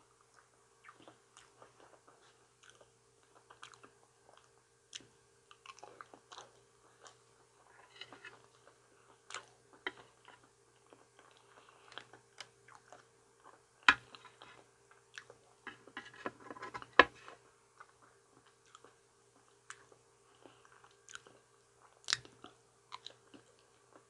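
Close-up chewing of soft ripe banana, with scattered small wet mouth clicks. A few sharper, louder clicks stand out about halfway through, again a few seconds later, and near the end. A faint steady hum runs underneath.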